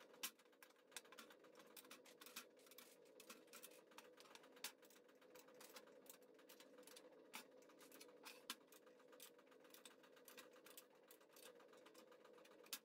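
Faint, irregular clicks and scrapes of metal staples being pried and pulled out of a wooden picture frame with a small metal hand tool, over a faint steady hum.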